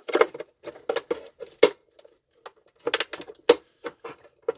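Irregular clicks and knocks of a plastic vacuum cleaner housing being handled and pried apart at its snap clips, with two sharper cracks, about one and a half and three and a half seconds in.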